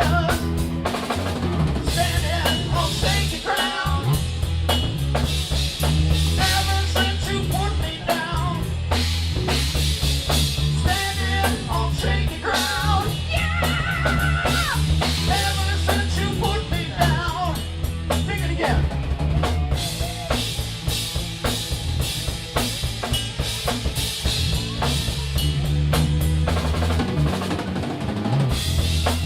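Live rock band playing: a drum kit keeping a busy, steady beat with snare and bass drum, under a heavy bass guitar line and electric guitar.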